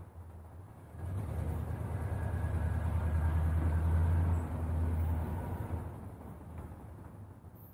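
A low engine rumble with a steady hum that swells about a second in, is loudest around the middle, and fades away again, like a heavy vehicle passing.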